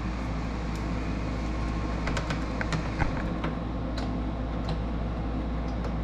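Scattered light clicks and taps from a small ratchet and screws being worked by hand behind a car's grille insert, over a steady low hum.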